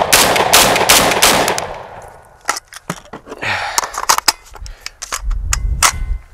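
A JTS AR12 semi-automatic 12-gauge shotgun fired rapidly, about five shots cracking in quick succession in the first second and a half, the gun cycling each round with Federal Upland shells. After that come scattered metallic clicks and clacks as the shotgun and its box magazine are handled.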